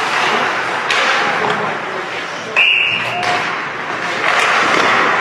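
Ice hockey rink ambience: a steady wash of crowd and arena noise with a knock about a second in. Just past the middle comes a brief, loud, high-pitched steady tone lasting about half a second.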